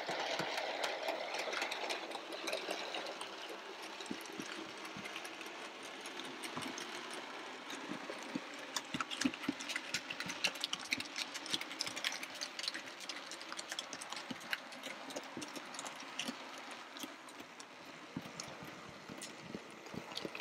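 Hornby OO gauge Class 51XX Large Prairie model locomotive running on track with a train of hopper wagons: a steady motor whirr over many irregular clicks from the wheels rolling over the rails.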